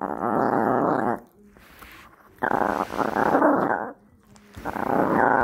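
Small dog growling over a beef rib while eating it, guarding its food: three long rumbling growls with short pauses between.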